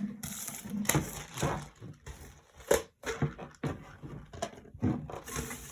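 Irregular knocks and light clatter of containers and bottles being moved about on a table, as the slime ingredients are shuffled around.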